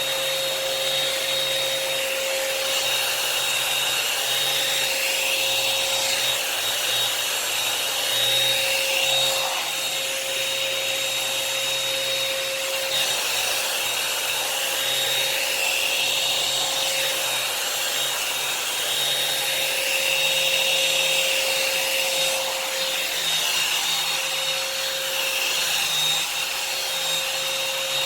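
Revlon hot air brush dryer running steadily: fan blowing with a constant whine.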